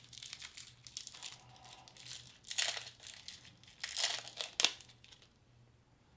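Plastic candy wrapper crinkling as a hard candy is twisted and peeled out of it, in irregular crackles with louder bursts about two and a half seconds and four seconds in, stopping about a second before the end.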